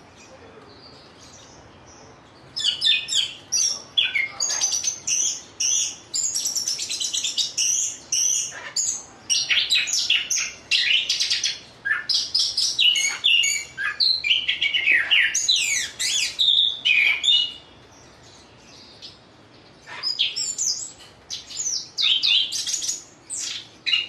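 Punglor kembang (chestnut-capped thrush) singing a rapid, varied song of high-pitched chirps, trills and quick glides. The song starts about two seconds in, breaks off for a couple of seconds near the end, then resumes.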